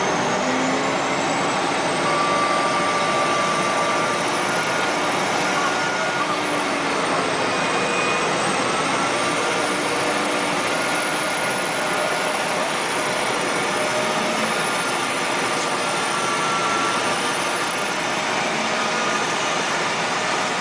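Large wheel loader's diesel engine running hard under load, a steady, loud, even noise, with a faint high whine slowly rising and falling above it.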